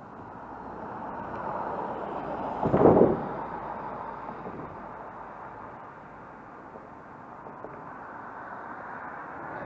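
A car passing close by: tyre and engine noise swells to a short, loud peak about three seconds in, then fades as the car drives off, over a steady hum of traffic.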